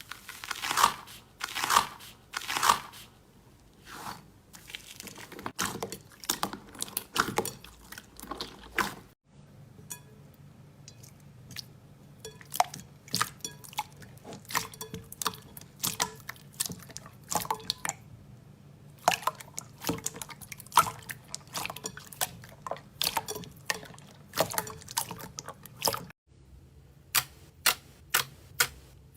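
Slime being squeezed and pressed by hand, giving sharp crackling pops and wet squishes. There are two abrupt cuts between clips, and the pops come in a quicker, regular run near the end.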